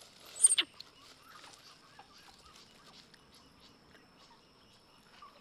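Baby macaques give one sharp, loud squeal about half a second in, followed by soft, short high squeaks and chirps.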